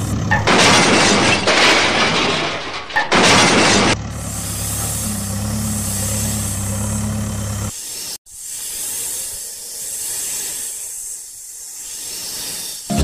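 Dubbed sound effects: two loud noisy crashing rushes in the first four seconds over a low engine hum, the hum cutting off about eight seconds in, followed by a steady cobra hiss.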